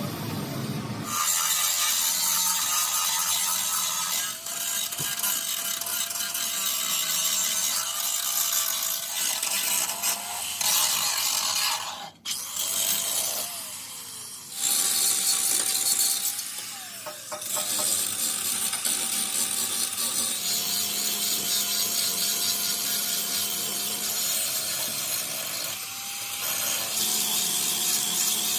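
Handheld power tool running while it cuts or grinds, a steady motor tone under a loud hiss. About twelve seconds in it cuts out and winds down with a falling pitch, then starts up again and runs on.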